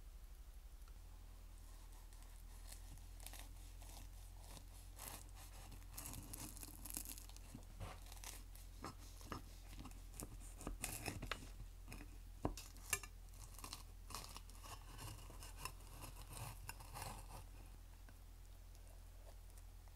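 Flaky baked puff pastry crust crackling and crunching as a flat metal server cuts through it and lifts out a slice: many irregular sharp crackles, the loudest about twelve to thirteen seconds in, over a faint steady low hum.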